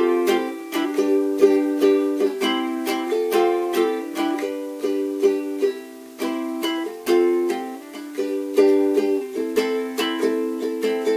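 A Cordoba ukulele strummed solo: a rhythmic run of chord strokes with the chords changing every second or so.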